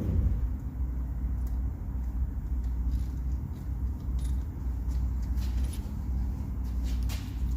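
Small metal parts clicking and clinking as the injector clamps and bolts are handled on a cylinder head, mostly in the second half, over a steady low hum.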